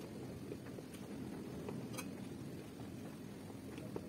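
Faint room noise with a few soft clicks as cucumber slices are set down on a stainless steel plate.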